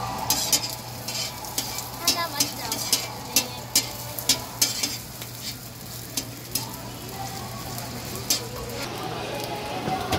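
Pork slices sizzling on a flat steel griddle, with metal tongs clicking and scraping against the plate as the pieces are turned: a quick run of sharp clicks over a steady frying hiss, thickest between about two and five seconds in, dying away after about eight seconds.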